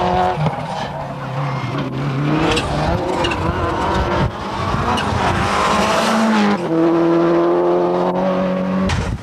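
Subaru Impreza WRC rally car's turbocharged flat-four engine at full throttle, its pitch climbing and dropping with the gear changes as the car slides through a corner, with the tyres scrabbling on the tarmac.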